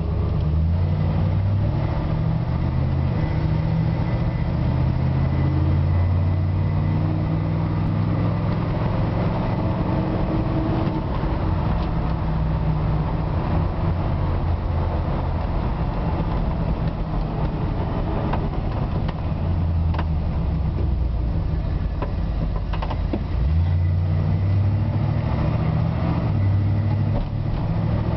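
A 1963 Chevy truck's engine running as it drives, heard from inside the cab, with road noise. The engine note steps up and down several times as the truck speeds up and slows.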